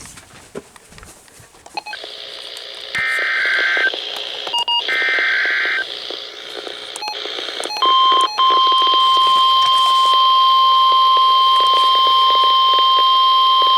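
NOAA Weather Radio receiver hissing with static, then sending two roughly one-second bursts of warbling SAME digital header tones. About eight seconds in, the steady 1050 Hz warning alarm tone starts and holds; it signals that an alert message, here a tornado watch, is about to follow.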